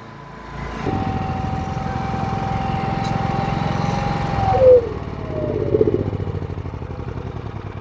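Two paralleled GENMAX 9000-watt inverter generators running hard under heavy load near their combined limit. About a second in they get louder and hold a steady pitch; a little before five seconds the pitch drops and keeps sliding slowly lower.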